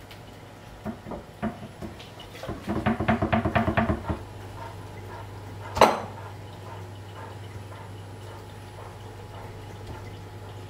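Kitchen handling sounds as broccoli florets are broken off by hand onto a wooden cutting board: scattered light clicks and knocks, a quick rattling run about three seconds in, and one sharp clack about six seconds in. A low steady hum sits underneath from about four seconds in.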